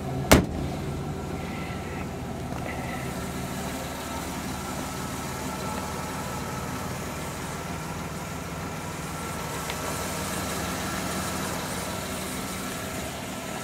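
Minivan engine idling steadily with an even, unchanging hum. A single sharp click comes about a third of a second in.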